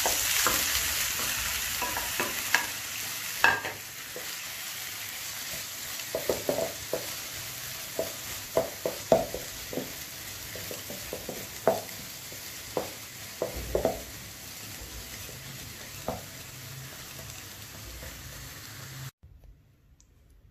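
Chopped green onions sizzling in hot oil in a frying pan, loudest as they go in and fading gradually, while a wooden spoon stirs them and clicks against the pan. The sound cuts off near the end.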